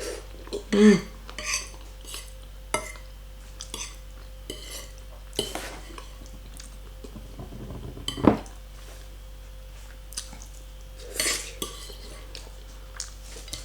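A fork clinking and scraping against a plate in scattered taps while pasta is gathered for the last bites, the loudest clink about eight seconds in.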